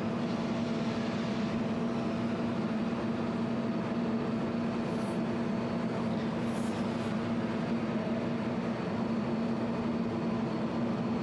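Jewelry laser welding machine running with a steady, even hum, with a couple of faint brief high ticks midway.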